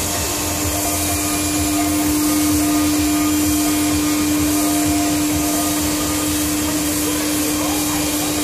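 A 5-axis CNC milling machine running steadily as it cuts a model aircraft fuselage: a constant whine from the spindle over an even, continuous hiss.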